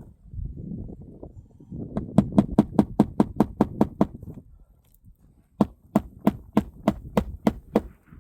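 Hammer driving roofing nails through asphalt shingles: two runs of quick, evenly spaced strikes, the second a little slower than the first.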